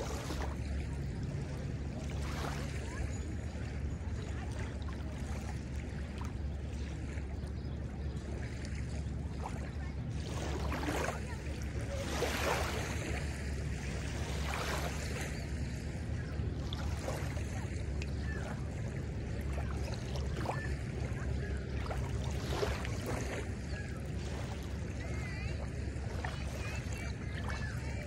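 Small wavelets lapping and washing over the sandy shallows of a lake shore, with a steady low rumble underneath.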